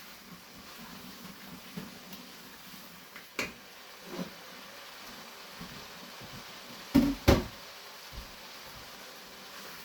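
Kitchen clatter during cooking: a light knock, a softer one, then two loud sharp knocks in quick succession about seven seconds in, over a low steady background.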